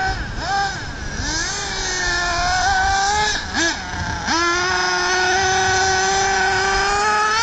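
Thunder Tiger EB4 S3 nitro buggy's .28 glow engine revving at high pitch. It gives a short blip, climbs and holds a high whine from about a second in, and drops off briefly around three and a half seconds. It then snaps back up and holds steady at high revs.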